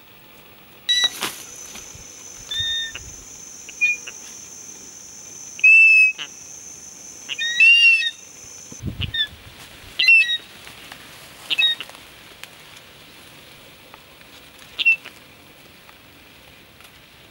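Eagle at its nest giving short, shrill whistled alarm calls, about a dozen irregular notes, as it spreads its wings to defend the nest against the approaching climber. A steady high-pitched buzz sits under the calls in the first half, and there is one dull thump about nine seconds in.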